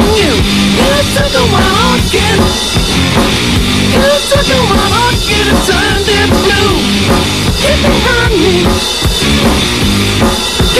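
Rock music with a full drum kit beating steadily under a wavering melodic lead line.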